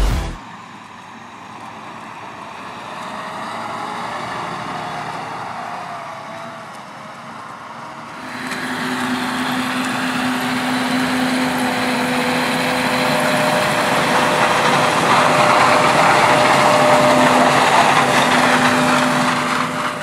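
Diesel farm machinery running in a harvested corn field: a tractor pulling a grain cart at first, then, louder from about eight seconds in, a John Deere T670i combine harvester with its corn header running, a steady hum over the engine noise, growing louder as it comes closer.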